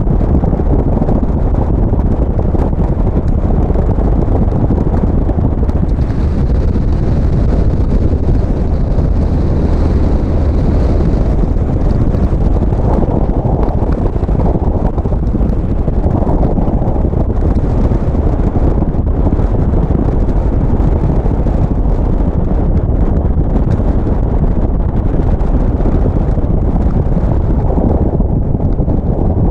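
Heavy wind rush on the microphone over the steady low running of a Harley-Davidson Street Glide's V-twin engine at road speed.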